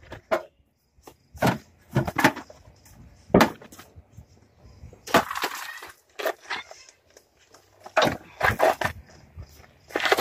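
Irregular knocks and bangs of hand work on a car's engine bay during engine removal, with a longer rasping noise about five seconds in.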